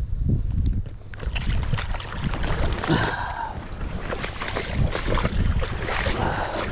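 Wind buffeting the microphone: an uneven low rumble with gusty noise over it.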